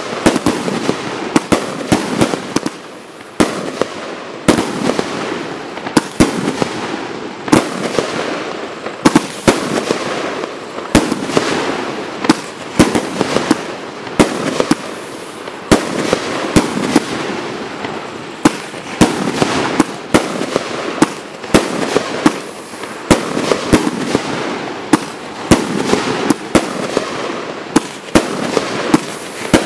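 Total FX Royal Thunder Pro firework cake firing a rapid sequence of shots: sharp bangs from the titanium salutes come about every second, irregularly spaced, between the launches and bursts of silver wave, peony and white blink effects. A constant noisy background fills the gaps between bangs.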